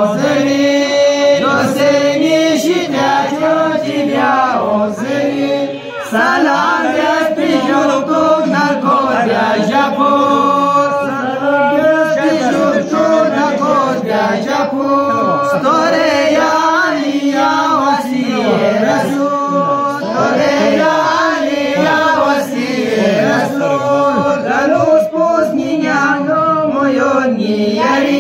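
A group of men and boys chanting a song together in unison, unaccompanied, with long held notes.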